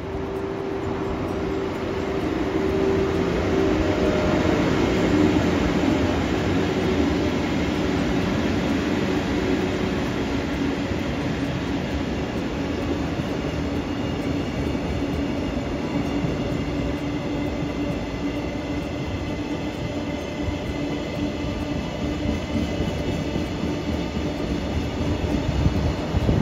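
Electric-locomotive-hauled freight train passing: the rumble of wheels on the rails with steady humming tones. The sound swells over the first few seconds, then holds as the wagons roll by.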